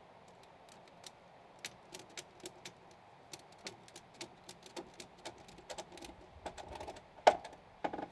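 A string of light, sharp clicks and taps from hand work on a timber log, irregular at about two or three a second, with one louder knock about seven seconds in and a short cluster near the end.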